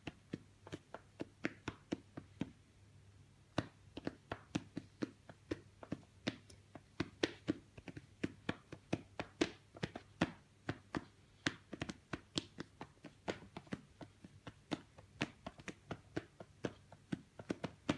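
Quick light pats drummed on a Devon Rex cat's bare belly with its own paws, moved by a person's hands: an uneven run of soft taps, about three to five a second, some sharper than others.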